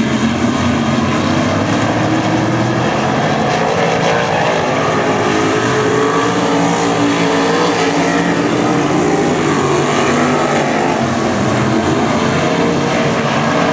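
A pack of RaceSaver 305 sprint cars' V8 engines running hard on a dirt oval, several engine notes overlapping and rising and falling in pitch as the cars go through the turn.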